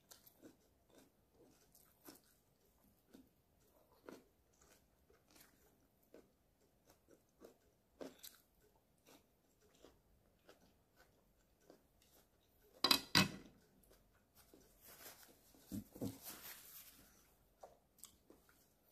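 A person chewing stir-fried beef and Chinese broccoli: soft, irregular mouth clicks and crunches. A sharp double knock comes about thirteen seconds in, followed by a couple of seconds of hissy rustling with clicks.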